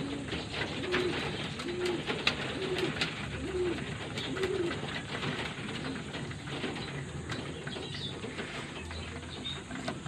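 Young racing pigeons cooing and pecking feed from a trough: a string of short coos through the first half, over rapid clicking of beaks on seed.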